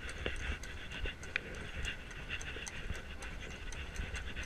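Horse-drawn carriage rolling over cobblestones: a steady low rumble from the wheels, with scattered hoof clops from the carriage horse.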